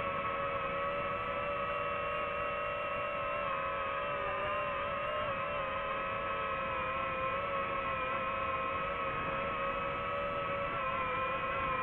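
Quadcopter drone's motors and propellers whining steadily while it hovers: several held tones over a rushing noise, the pitch sagging slightly a couple of times.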